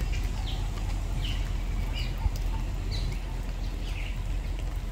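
Birds chirping, short falling calls about once a second, over a steady low rumble.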